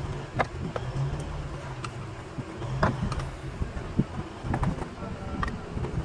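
Scattered sharp clicks and knocks of hands-on work on a diesel engine under repair, over a low hum that weakens about three seconds in.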